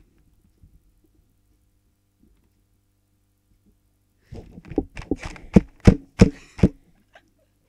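Hand puppets being knocked and thumped about close to the microphone: after about four seconds of quiet, a quick run of about eight sharp knocks and thumps over two and a half seconds, several of them loud.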